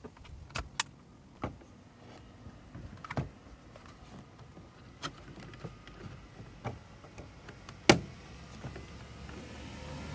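Plastic car-door trim pieces being handled and fitted back on, giving scattered clicks and light knocks, with one sharp snap about eight seconds in.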